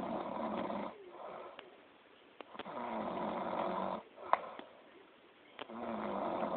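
A sleeping person snoring loudly: three long snores, one about every three seconds, the first two each followed by a softer breath. A sharp click about two-thirds of the way through.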